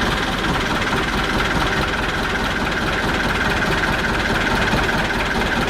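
Perkins 4.108 four-cylinder marine diesel engine running steadily at low throttle with no oil pressure coming up, just after an oil change in which the filter was fitted unfilled.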